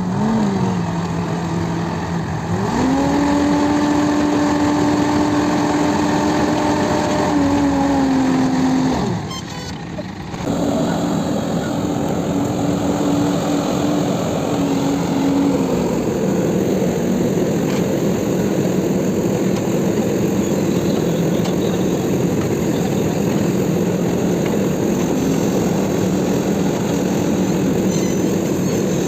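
Diesel engine of a self-loading concrete mixer running under load. It revs up about two and a half seconds in and holds high revs, then drops out briefly around nine seconds before running steadily again.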